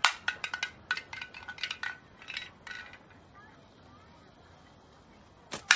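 A slingshot shot with a sharp snap, followed by a quick run of light, ringing clinks over about three seconds as a small hard object clatters and skitters. A second sharp snap and another short run of clinks come near the end.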